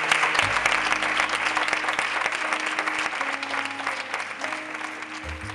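Audience applauding, the clapping slowly fading. Background music with steady low bass notes comes in about half a second in and plays under the applause.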